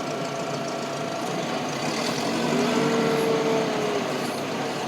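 Car engine running steadily, rising in pitch and level as it revs up about halfway through, then easing back near the end.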